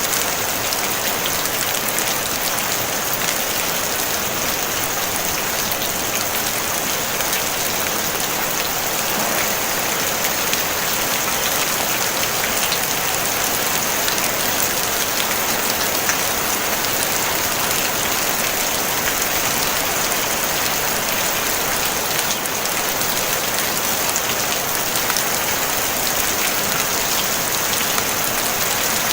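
Steady rain falling on a tin roof: an even hiss speckled with countless small drop ticks, with no thunder.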